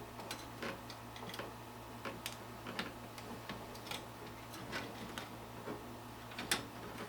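Fingernails picking at and peeling protective plastic film off a graphics card: irregular small clicks and crackles, about one or two a second, with a few louder ones near the end.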